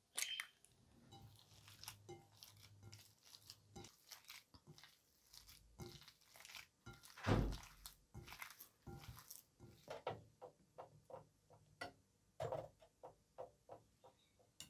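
An egg cracked on the rim of a glass bowl, then bare hands kneading raw minced meat with spices and egg: a run of short, wet squishing and slapping sounds, with one louder thump about seven seconds in.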